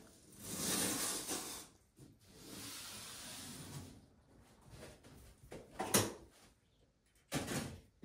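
Plasterboard joint tape being pulled off its roll and pressed onto the joints: a long tearing rasp about half a second in, a softer one around two seconds, then a sharp crackle near six seconds and a short rasp near the end.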